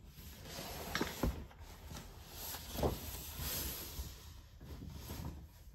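Paper and cardboard packaging rustling and rubbing as it is handled and slid together, with a few light knocks about one, one and a half, and three seconds in.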